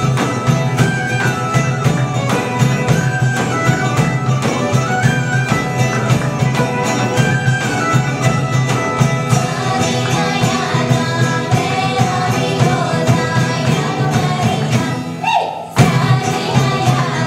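Live folk band playing a Balkan tune on fiddle, acoustic guitar, Macedonian tambura and darbuka over a steady beat, with singing in it. About fifteen seconds in, the music drops away for a moment and comes back in with a loud hit.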